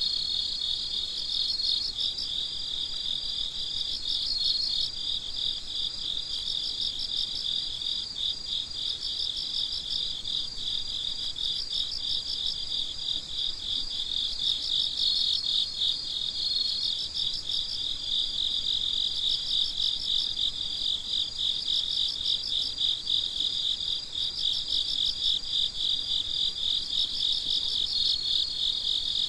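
Night chorus of crickets chirping in quick, even pulses, with a steady high trill from one cricket coming in briefly several times.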